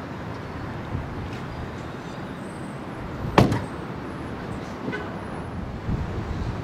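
The trunk lid of a Ferrari 599 GTB Fiorano is shut with a single sharp thud about three seconds in, over steady background noise.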